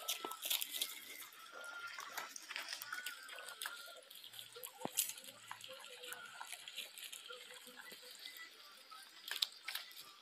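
Farmyard sound of a flock of Muscovy ducks moving about on dirt: scattered light clicks and taps, with a few faint thin calls.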